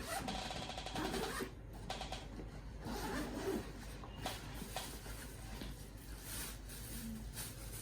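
Rustling and scraping of packaging being handled and opened, in irregular bursts as items are pulled out of a parcel.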